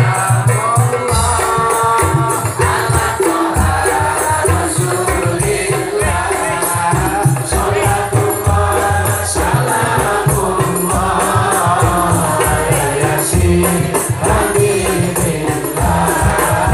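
Sholawat (selawat, devotional Arabic song) sung by a man and a woman over microphones and a PA, accompanied by a steady fast beat on rebana frame drums with jingling percussion.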